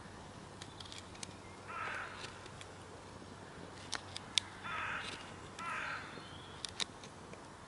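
A crow cawing three times, harsh calls about two, five and six seconds in, with light clicks of a knife working a wooden stick in between.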